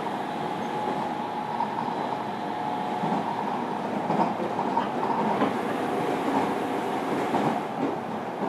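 Running sound heard inside a JR Kyushu 305 series electric multiple unit's motor car (MoHa 305-101) travelling at speed: steady rumble of wheels on rail with a steady hum from the running gear and clicks over rail joints.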